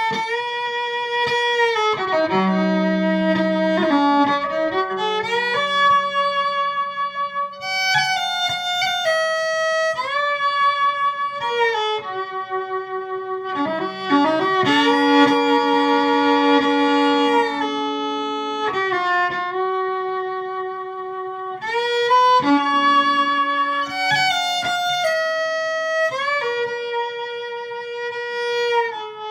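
Don Rickert Mountaineer travel fiddle bowed through its pickup, Fishman Pro EQ II preamp and Fender Acoustasonic Junior amp, EQ'd a little more bassy to make up for the small body. It plays a slow tune of long held notes, some joined by short slides.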